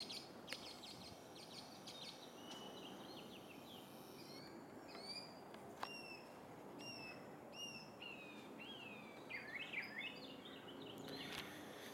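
Several birds chirping and calling faintly over a steady background hiss, with a single sharp click about six seconds in.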